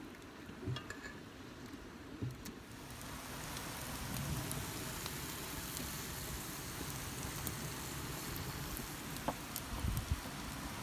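Bacon sizzling in a hot cast iron skillet: a steady crackling hiss that starts about two and a half seconds in, after a few light ticks and knocks.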